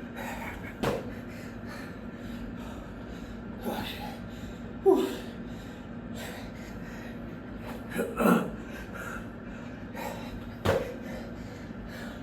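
A man gasping and breathing hard with exertion during burpees, with a loud gasp or grunt every couple of seconds. He is exhausted deep into a long burpee session.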